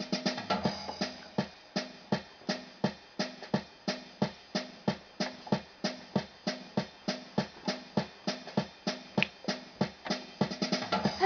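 Electronic keyboard's built-in drum rhythm playing a steady, fast beat of kick, snare and cymbal hits.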